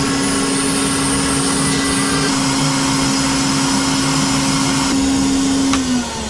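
Record-cutting lathe's vacuum suction running during a test cut: a steady hum over an airy hiss. Shortly before the end the hum slides down in pitch and the sound starts to fade.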